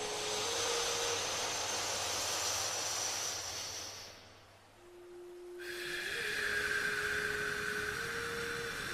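A person breathing through the nose: a long inhale of about four seconds, a pause of about a second and a half, then a long exhale that is still going at the end. A soft steady tone that steps up and down in pitch runs underneath.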